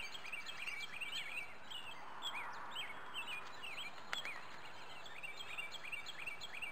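Many small birds chirping, short high notes repeating over a faint steady outdoor hiss, with a single faint click about four seconds in.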